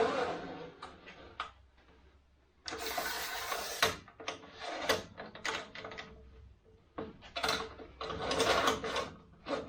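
Metal parts of a table saw's crosscut arm and adjustable clamp being handled and adjusted: a run of mechanical clicks and rattles, with a longer scraping slide about three seconds in and more clatter near the end.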